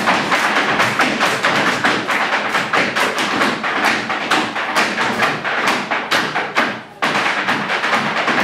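Irish step dancers' hard shoes striking the stage in a rapid, dense clatter of taps for a jig. The taps thin out and grow quieter just before seven seconds in, then come back abruptly at full force.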